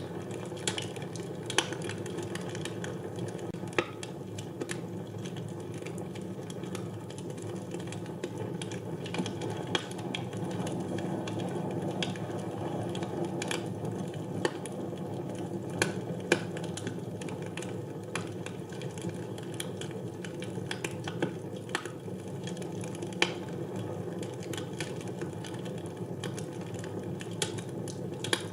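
Fire burning in a fireplace: a steady low rush of flames with irregular crackles and a few louder pops.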